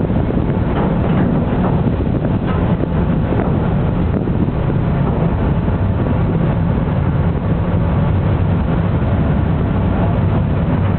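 The M/V Vermont ferry's engines running with a steady low drone as the boat approaches the slip, with wind rumbling on the microphone.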